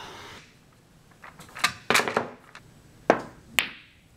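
Pool balls striking one another on a billiard table: a run of sharp clacks, about four in all, the loudest near three seconds in.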